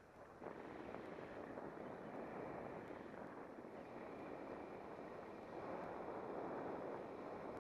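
Wind rushing over the microphone of a pole-mounted action camera on a tandem paraglider in flight. It jumps up about half a second in and swells again a few seconds later as the glider banks in a turn.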